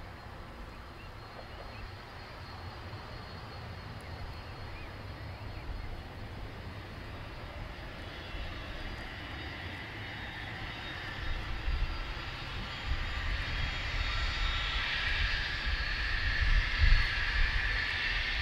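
Avro RJ100's four Honeywell LF507 turbofan engines running at low power while the jet taxis onto the runway: a low rumble with a high whine that grows steadily louder, the whine building from about halfway through as the aircraft turns to face the microphone.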